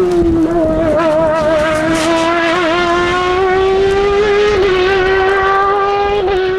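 Competition car's engine held at high revs under hard acceleration on a hill climb. The pitch drops just at the start, then climbs slowly and steadily, with brief small dips partway through and near the end.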